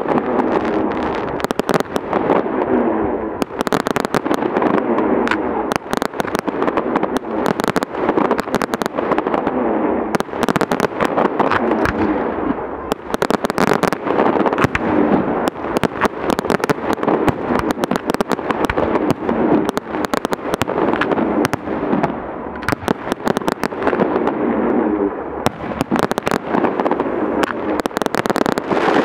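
A fireworks display with dense, rapid bangs and crackling shell bursts, easing briefly a few times.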